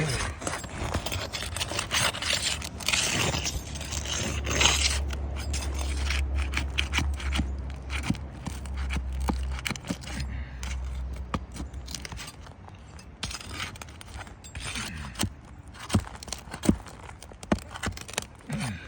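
Brittle, aged asphalt shingles being lifted and handled on a roof: scraping and crackling with many sharp clicks, busiest in the first few seconds and thinning out toward the end. A low rumble runs through the middle stretch.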